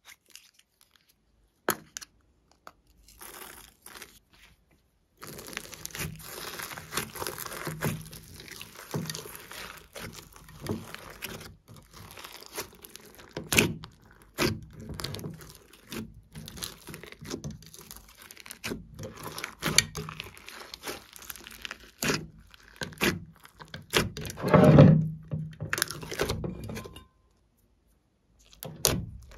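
Glossy slime with beads and sequins worked through it, mixed and squished by hand in a glass dish: sticky crackling and popping with scattered clicks. The mixing starts after a few nearly quiet seconds, and there is a heavier thump near the end.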